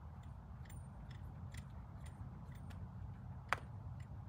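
Horse walking under saddle in soft sand, with faint scattered clicks and ticks of the tack and one sharp click about three and a half seconds in, over a low steady rumble.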